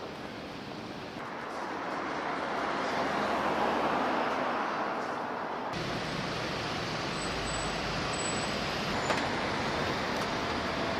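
Steady city road traffic noise, cars and taxis running past on a street. It becomes deeper and fuller about six seconds in.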